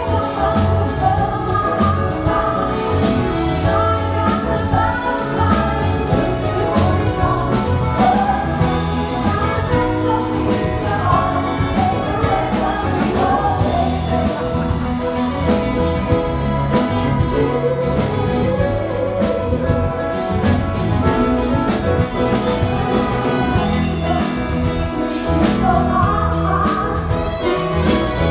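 Big band playing an upbeat pop song, with a melody line moving over a continuous band texture of drums, bass and brass.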